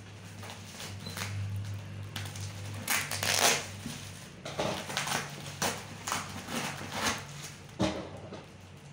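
Black plastic parcel wrapping crinkling and ripping as it is cut and pulled open. The loudest rip comes about three seconds in, followed by a string of shorter rustles and a sharp tear near the end, over a steady low hum.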